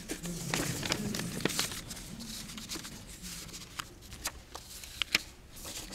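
Sheets of paper rustling and being shuffled at a lectern microphone, with scattered soft clicks as pages are handled and sorted.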